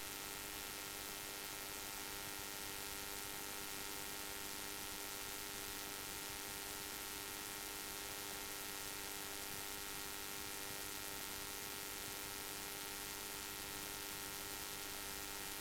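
Steady electrical hum with hiss on the cockpit audio line while the radio is silent between transmissions.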